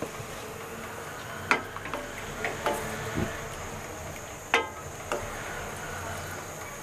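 Wooden spatula stirring wet onions and ginger-garlic paste in a stainless steel karai, knocking against the pan a few times, with two louder knocks about a second and a half and four and a half seconds in, over a low steady sizzle.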